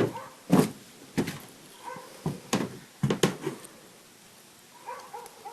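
A series of sharp clicks and knocks, about seven in the first three and a half seconds, from small parts and tools being handled while a dirt bike carburetor is taken apart, then a quieter stretch.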